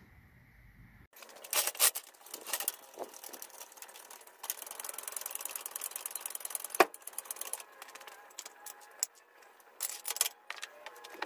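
Hydraulic floor jack being worked with its long handle to raise a vehicle, giving irregular clicks and metallic knocks, with one sharp clack in the middle.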